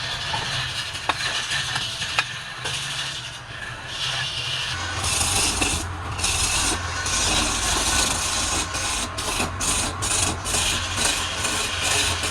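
Wood lathe running with a turning tool cutting the spinning wood: a steady motor hum under a hissing scrape that comes and goes in quick repeated strokes over the last few seconds.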